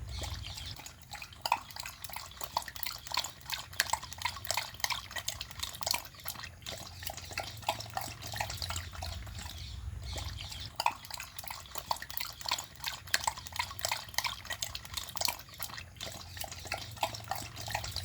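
A dog lapping water from a bowl: a quick, continuous run of wet laps and small splashes.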